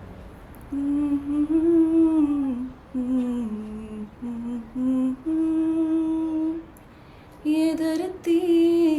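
A person humming a tune unaccompanied: a slow melody of held notes, broken by a short pause about seven seconds in.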